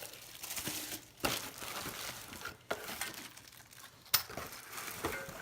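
Packaging rustling and crinkling as weight-rack parts are pulled out of their cardboard box, with a few sharp knocks, the loudest about four seconds in.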